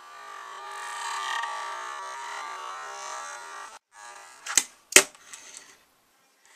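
Tech Deck fingerboard wheels rolling steadily over a wooden surface for nearly four seconds, then stopping abruptly. About a second later come two sharp clacks about half a second apart as the board strikes the wood, followed by a few lighter ticks.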